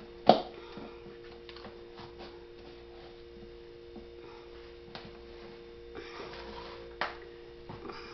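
Frozen food packages being handled and set down into a storage box: a sharp knock about a third of a second in, a second knock at about seven seconds, and lighter taps and rustles between, over a steady hum.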